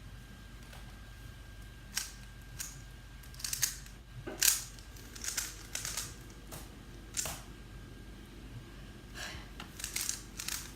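3x3 Rubik's Cube being turned by hand: its plastic layers click and clack at an irregular pace, in short clusters of turns with pauses between them.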